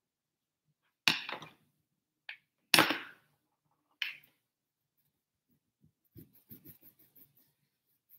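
A few sharp knocks as a stretched painting canvas is handled and held up, then faint short scratching strokes of a paintbrush on the canvas near the end.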